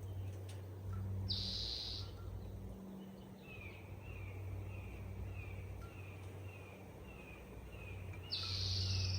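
Forest ambience: a bird sings a run of short falling notes, about two a second, for several seconds. A short buzzy call sounds twice, about a second in and again near the end, over a steady low hum.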